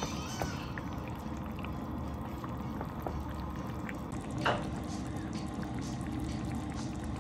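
Kitchen cooking sounds: liquid in a pot or vessel, with a few light clicks and one louder clink about four and a half seconds in.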